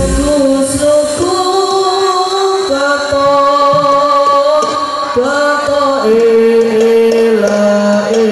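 Hadroh group singing sholawat together through a PA system, drawing out long held notes that step up and down in pitch. The frame drums stop just after the start, leaving only light percussion ticks under the voices.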